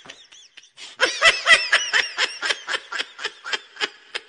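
A person laughing hard: a quick, high-pitched ha-ha-ha run at about four or five laughs a second. It is faint at first, pauses briefly, then comes loud from about a second in.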